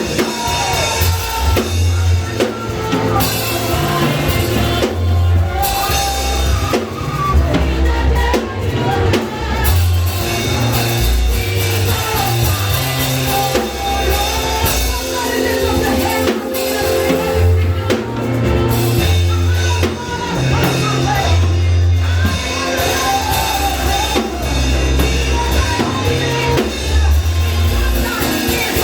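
Worship music played by a band with a drum kit and a moving bass line, with singing over it.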